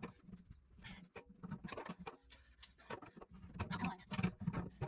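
Faint, irregular scraping and clicking of a hand tool working against a stuck plumbing fitting that will not come loose.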